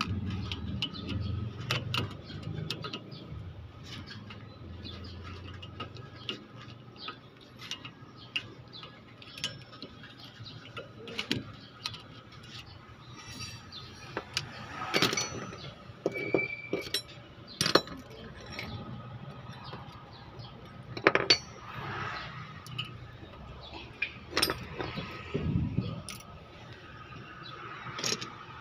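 Irregular metallic clinks and taps of steel hand tools, wrenches being handled and knocking against a wheel hub, with a few sharper knocks around the middle and near the end.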